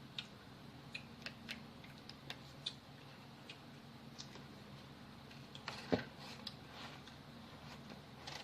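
Light clicks and taps of a homemade hot-glued vending machine being worked by hand, with one louder knock about six seconds in.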